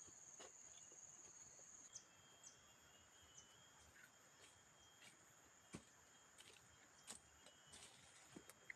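Near silence with a faint, steady, high insect drone that weakens about two seconds in, and a few faint scattered ticks and taps.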